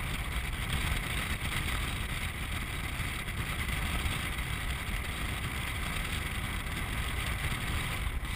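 Land sailer underway on a dry lake bed: a steady rushing of wind and rolling rumble with no engine, unbroken throughout.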